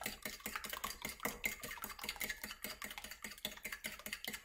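Metal fork whisking two eggs in a ceramic bowl, the tines clicking rapidly and evenly against the bowl about eight times a second.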